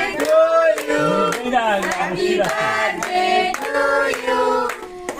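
A group singing a birthday song, with hands clapping along in a steady beat about two to three claps a second.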